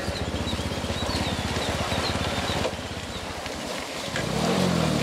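An engine running with a rapid, even chug that drops back a little past halfway and picks up again near the end, with small birds chirping high over it.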